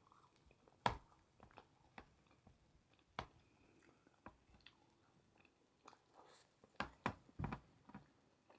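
Mouth eating sounds: chewing a mouthful of food with wet smacks and clicks, irregular and quiet, the sharpest about a second in and a cluster of louder smacks around seven seconds in.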